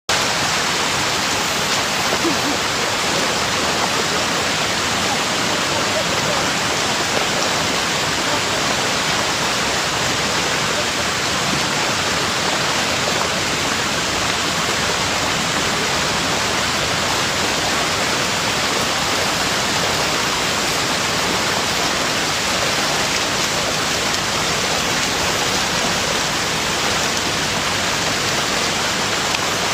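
A steady, even hiss like rushing water or static, unchanging throughout, with no distinct splashes or knocks.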